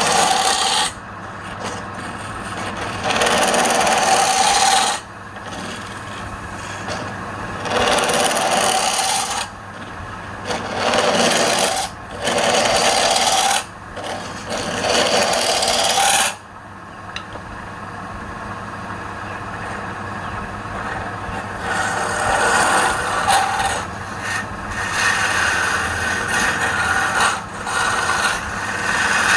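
Wood lathe running with a tool scraping against the spinning wood in repeated passes of one to two seconds, over a steady motor hum.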